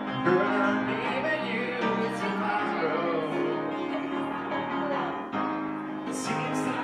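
Upright piano played live, with the pianist's voice joining in now and then.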